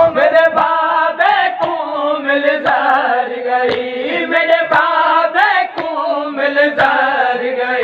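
A group of men chanting a noha refrain together without instruments, with a dull beat about once a second from hands striking chests (matam).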